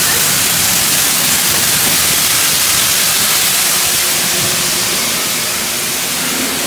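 High-velocity pet dryer blasting air through its hose nozzle into a thick double coat, a loud, steady rushing hiss as the loose undercoat is blown out.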